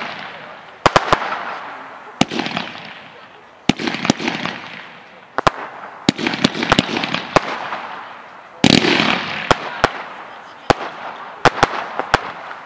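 Mars Pyrotechnics Star Chaser firework firing shot after shot: sharp bangs every second or so, each group followed by a hiss that fades away. The loudest, longest burst comes about nine seconds in.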